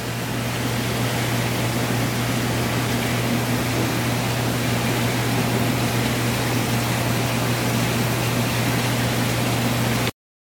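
Aquarium pumps and water flow running steadily: a rushing hiss over a constant low electrical hum. It cuts off abruptly near the end.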